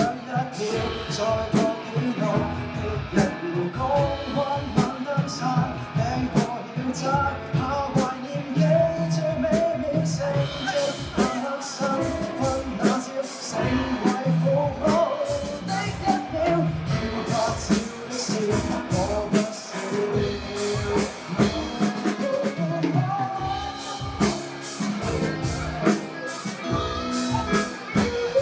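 A band playing a pop-rock song: a singer over guitar and drum kit.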